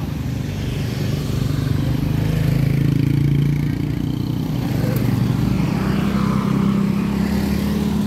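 Small motorcycle scooter engines running as they ride past on a paved road, a low steady hum whose pitch shifts about halfway through as one scooter moves off and others come closer.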